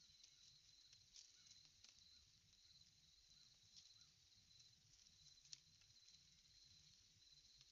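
Faint, steady trilling of an insect chorus, with a few faint clicks, one about five and a half seconds in.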